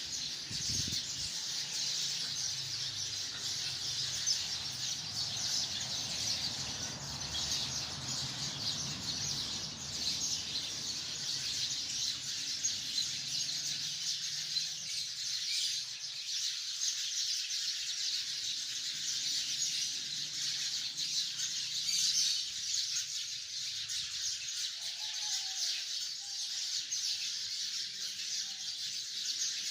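A large flock of sparrows chirping in a tree, a dense, unbroken chatter of many overlapping calls. A low rumble sits under it and fades out about halfway through.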